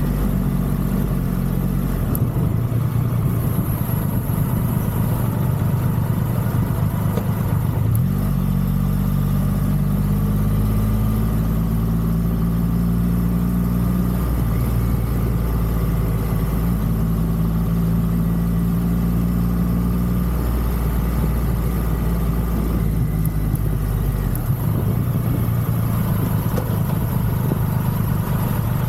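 Triumph Rocket 3's three-cylinder engine running on the move, its note rising about eight seconds in and dropping back near the end as the throttle changes.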